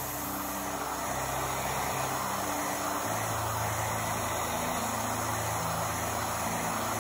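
Bench disc sander running with an epoxy resin block held against its spinning abrasive disc: a steady grinding noise of resin being sanded.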